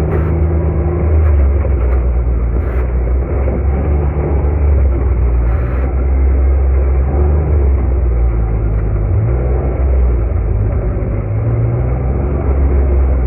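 A UTV's engine running as it drives along: a steady low drone whose pitch rises and falls slightly with the throttle.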